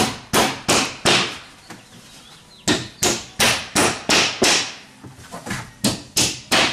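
Hammer driving nails through a drywall sheet into the wall studs: quick runs of sharp blows, about three a second, with a pause of about a second and a half after the first four.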